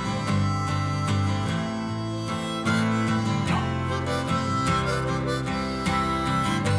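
Background music: a harmonica playing over strummed acoustic guitar and a bass line, in a bluesy country style.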